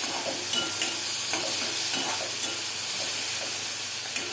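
Green chilli, garlic and cumin paste and fried onion sizzling in hot oil in a kadhai while being stirred and sautéed, with a steady frying hiss and small repeated scrapes of the stirring.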